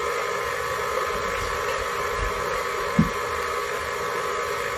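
Electric tilt-head stand mixer running steadily on low, beating cake batter in its steel bowl as sour cream is added. A single soft knock sounds about three seconds in.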